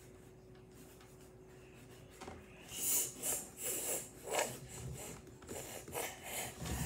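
Quiet for the first couple of seconds, then a run of irregular scratchy rubbing strokes of writing on paper.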